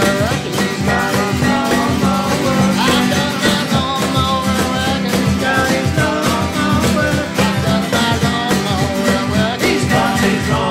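Acoustic band playing a blues song: three acoustic guitars strumming over a steady cajón beat.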